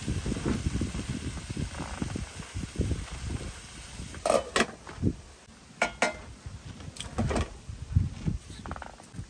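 Wooden spoon stirring diced tomatoes in a stainless steel pan, with soft scraping and knocking. From about four seconds in, a glass pot lid clinks against the pan rim several times as it is set on.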